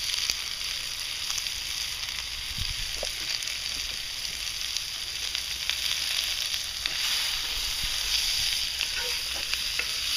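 Sliced red onions sizzling steadily in bacon grease in a cast-iron skillet, with small clicks and scrapes as a wooden spatula stirs them during the second half.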